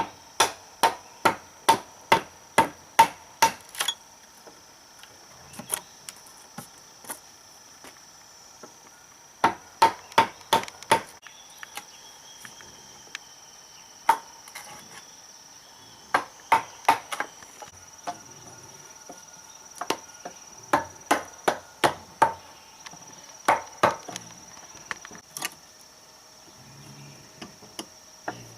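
Hammer blows on wood, struck in quick runs of about three a second with short pauses between runs, each blow ringing briefly. A steady high insect buzz runs underneath.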